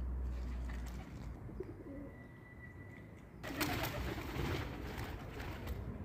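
Doves cooing in low, soft notes. A little past halfway, a loud rushing noise suddenly comes in and stays.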